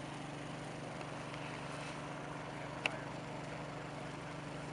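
An engine running steadily with a low, even drone, and one sharp click about three seconds in.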